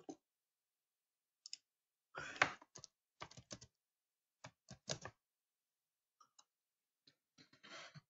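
Faint, irregular clicks and taps at a computer keyboard and mouse, in scattered clusters with quiet gaps between.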